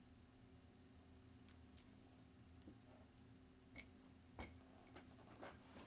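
Near silence with a low steady hum, broken by several faint, short clicks and taps, the clearest two about two-thirds of the way through.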